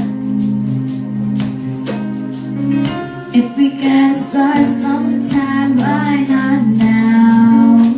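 Song music: held chords under a steady percussion beat, with short sung phrases.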